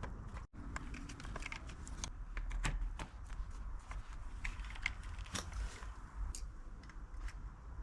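Irregular light clicks and taps of bicycle headset parts and tools being handled as the greased top headset cup is fitted into a Brompton frame.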